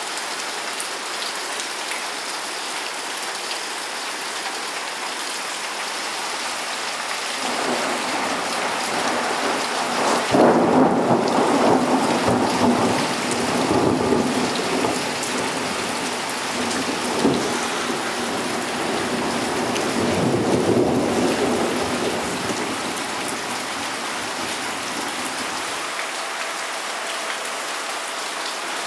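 Steady rain falling, with a long roll of thunder. The thunder builds about a quarter of the way in, is loudest around a third of the way in, swells again past two-thirds, and dies away near the end.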